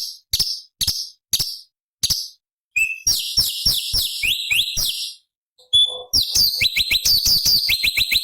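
Orange-bellied leafbird singing: harsh chips about two a second, then after a short pause rapid runs of quick falling whistled notes, twice.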